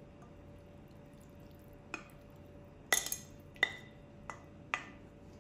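Wooden spoon knocking against the rim of a ceramic bowl as shredded chicken is scraped out into a baking dish: about five short, sharp taps in the last few seconds, the loudest a quick double about three seconds in.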